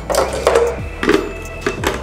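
A run of short plastic clicks and knocks as a blender jug is fitted with its blade unit and set onto the Panasonic blender base, over steady background music.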